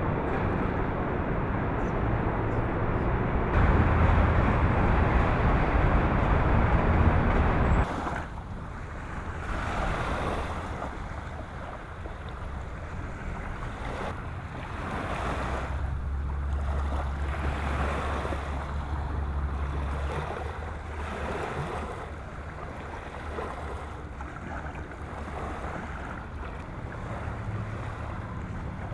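Boat ride on open water: wind buffeting the microphone and water washing, over a low engine drone. The noise is heavy at first and drops abruptly about eight seconds in, then comes and goes in gusts.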